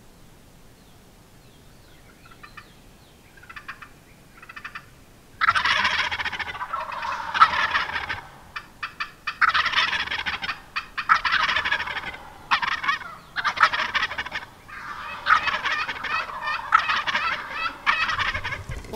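Wild turkey gobbling over and over: a few faint gobbles about three seconds in, then loud gobbles one after another from about five seconds in, some back to back.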